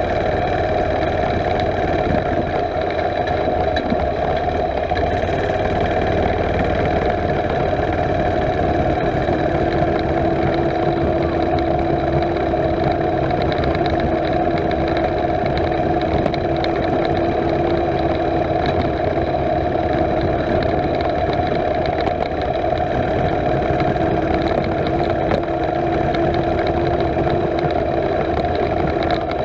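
Mini bike's small single-cylinder engine running at a steady speed while the bike is ridden, heard close up from the bike itself. Its pitch holds steady throughout, with a second, lower tone joining about ten seconds in.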